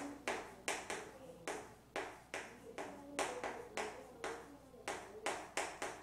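Chalk tapping and scraping against a chalkboard while words are written: a string of short, sharp taps, about three a second and unevenly spaced.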